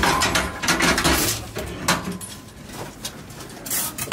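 Metal clanking and knocking of long-handled ningyo-yaki molds being handled and opened on a gas grill, in quick uneven clatters, busiest in the first second or so, with another sharp clank near the end.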